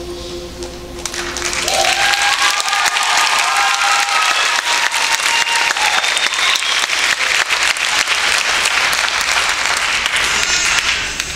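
Audience applauding, breaking out about a second in as the choir's song ends, with some cheers over the clapping, and dying down near the end.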